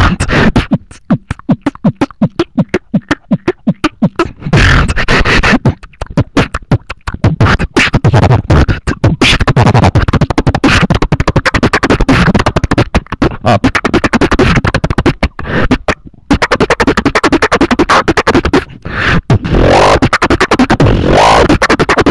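Beatboxing heard over Ventrilo voice chat: a fast, dense run of vocal drum sounds, with kicks, snares and clicks, and a few short pitched, sliding vocal tones mixed in near the end.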